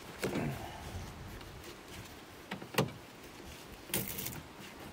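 Ratchet tie-down strap being unfastened from a snowmobile's ski: webbing zipping through the buckle just after the start, a sharp click just under three seconds in, and a brief scrape at about four seconds.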